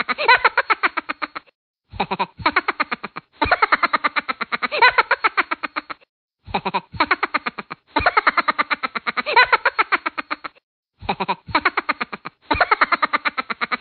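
Cartoon soundtrack: a fast, stuttering, pitched warble, about a dozen pulses a second, in runs of one to two and a half seconds with short breaks between.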